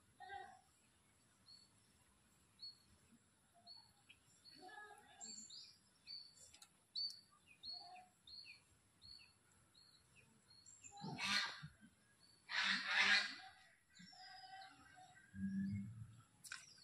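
A bird calling outdoors with a run of short, high chirps, about two a second, with fainter lower notes among them. Later come two loud rushes of noise about a second and a half apart, then a brief low sound.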